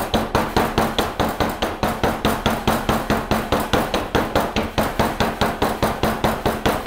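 A loaf mold full of freshly poured soap batter being rapped again and again on a stainless steel table, about six quick knocks a second. The tapping settles the batter flat into the bottom of the mold.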